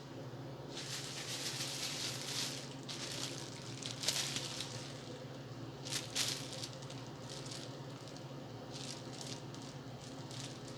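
Sandwich-making handling sounds: food and wrappers being rustled and squished in irregular bursts, the loudest about four and six seconds in, over a steady low hum.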